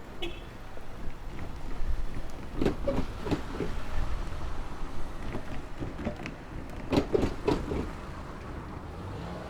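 Wheels knocking over the rails of a level crossing in two quick groups of about four knocks each, a few seconds apart, over a low rumble of passing traffic.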